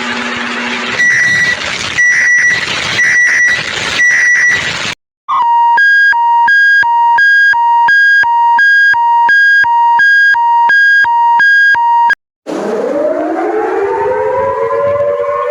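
A run of different sirens, one after another. First a noisy recording with a short high beep about once a second. Then a two-tone electronic hi-lo siren switching between a low and a high pitch about every third of a second, and finally a civil defence siren winding up, its several tones rising together in pitch.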